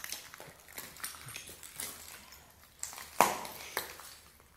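Footsteps crunching and scraping over a debris-strewn floor, with scattered clicks and one sharp knock about three seconds in.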